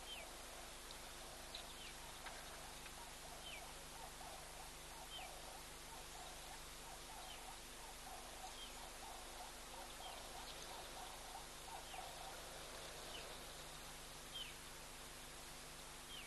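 Birds calling at a waterhole: short, high, downward-sliding notes repeated every second or two, with a busier patch of lower, chattering calls through the middle, over a steady hiss and a faint low hum.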